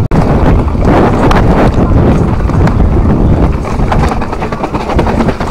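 YT mountain bike descending a rough dirt trail at speed: tyres rumbling over loose ground, with a steady clatter of knocks and rattles from the bike.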